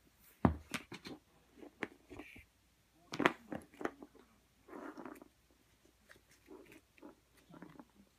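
Norwegian Forest Cat playing with a string toy on a wooden floor: irregular thumps, scrapes and rustles of its paws and body against the boards, with sharp knocks about half a second in and about three seconds in.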